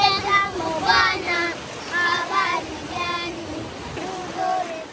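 Several young children singing together, their high voices holding and bending notes in a simple tune.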